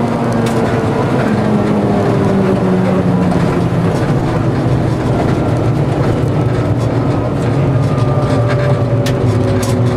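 Rally car engine heard from inside the cabin, running hard, its pitch falling and rising as the driver works the throttle and gears, over steady road and tyre noise. A few sharp ticks come near the end.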